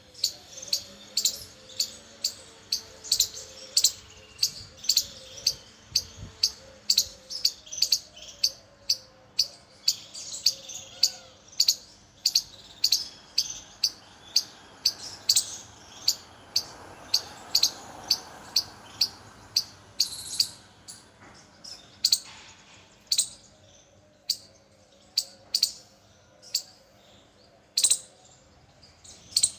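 Squirrel giving a long run of sharp, high chirping calls, about three a second, thinning out to scattered single chirps after about twenty seconds.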